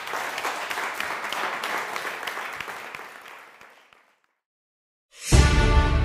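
Small audience clapping, fading out about four seconds in. After a second of silence, loud music with a strong bass starts near the end.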